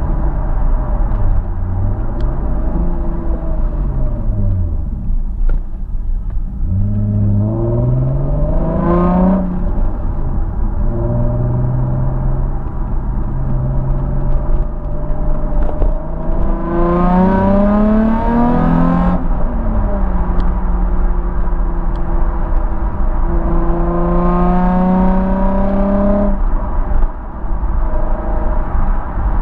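Nissan 350Z Roadster's 3.5-litre V6 heard through a Scorpion un-resonated cat-back exhaust with Y-pipe and high-flow sports cats, driving on the road. Three times the exhaust note climbs in pitch under acceleration and breaks off at a gear change, with steadier cruising and lifting off in between.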